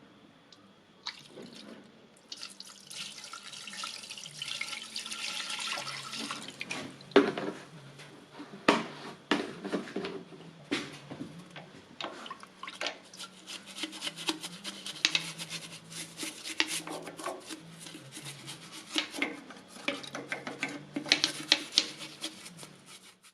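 Petrol being poured into the drained oil sump of a Pullmax P13 sheet-metal machine and sloshed around to flush out the old oil: a steady pour for a few seconds, then splashing with many sharp knocks and clinks of metal.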